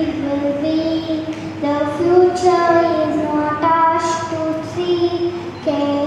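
A young girl singing solo into a microphone with no accompaniment. She holds each note for up to about a second and slides between pitches.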